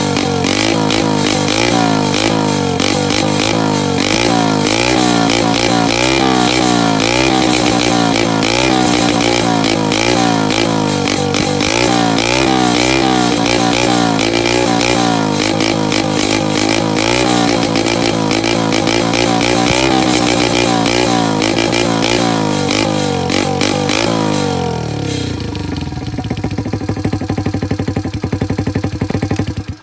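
Honda Monkey's small single-cylinder four-stroke engine, running through a Pretty Racing CB400F-style exhaust with the silencer taken out, its throttle blipped again and again so that the revs keep rising and falling. About 24 seconds in, the revs drop away to a lower, steadier idle, and the sound cuts off suddenly at the very end.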